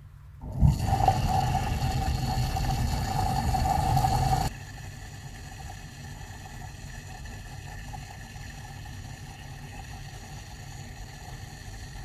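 Submersible pump running underwater while it sucks sludge off a pond bottom: it starts suddenly about half a second in, loud with a steady whine, then drops to a quieter steady hum about four seconds in.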